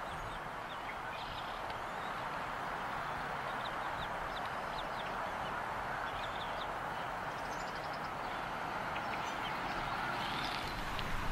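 Faint, short high chirps scattered over a steady wind-like hiss: bald eaglets peeping in the nest while the adult feeds them.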